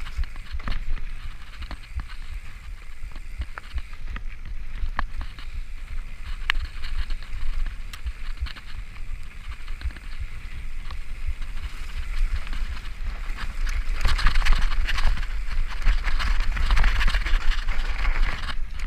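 Mountain bike riding fast down a dirt singletrack: tyres running over dirt and dry leaves, the bike rattling and knocking over bumps, with wind rumbling on the microphone. It gets louder for a few seconds near the end.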